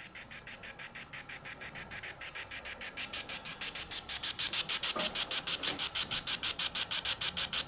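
Spirit-box app on a phone (Ghost Tube Vox) sweeping through static, played through the phone's own speaker: rapid, even pulses of hiss, about six or seven a second, growing louder about four seconds in.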